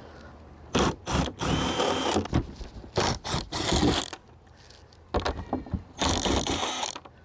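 Power drill run in about five short bursts, backing screws out of an old RV roof vent.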